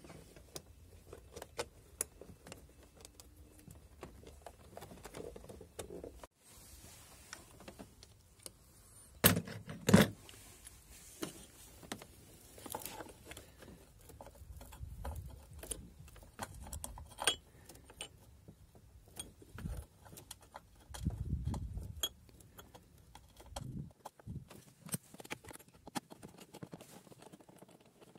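Light metallic clinks and rattles of battery cable clamps and hardware being handled while a car battery is fitted, with two loud sharp knocks close together about a third of the way in.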